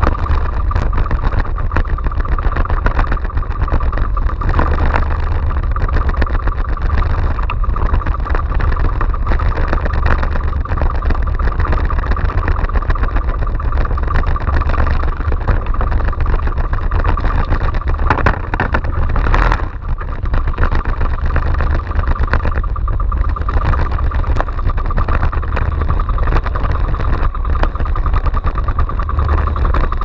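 Engine of a small outrigger fishing boat running steadily, with a constant low rumble beneath a steady hum.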